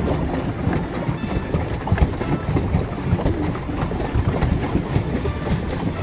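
Pedal boat under way: its pedal-driven paddle wheel churns the water with a steady clattering, broken by irregular low knocks.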